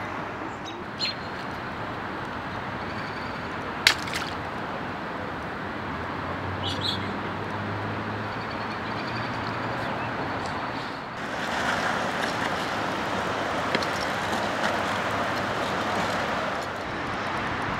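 Steady outdoor background noise with no speech or music, getting louder about eleven seconds in. A single sharp click comes about four seconds in, and a few brief high chirps, likely birds, come near seven seconds.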